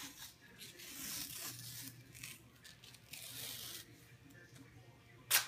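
Athletic tape ripping as it is pulled off the roll and wrapped around an ankle, in two longer pulls about a second in and around three seconds in, then a short sharp sound near the end.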